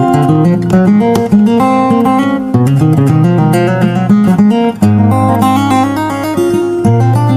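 Solo fingerstyle acoustic guitar playing a song, with held bass notes under a plucked melody line, one guitar covering several parts at once.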